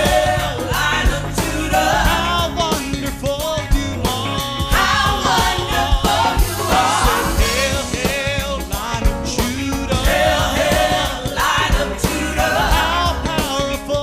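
Southern gospel praise band playing an up-tempo song: a wavering lead melody over a steady drum beat, with no clear sung words.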